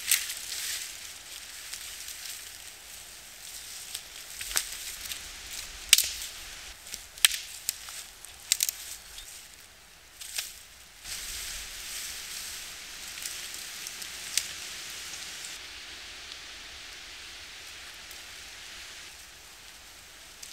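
Leafy conifer branches being dragged over leaf litter and thrown onto a pile of sticks: a rustling, swishing hiss broken by sharp snaps and cracks of twigs, most of them between about four and ten seconds in.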